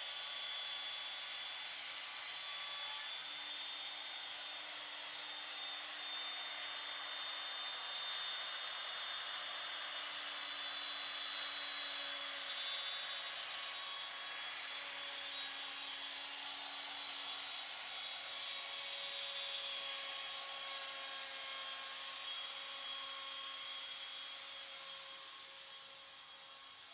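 CNC router's 3.25 HP Porter-Cable router motor running and cutting wood, a steady hissing, high-pitched whine with a few steady tones. It gets quieter about a second before the end.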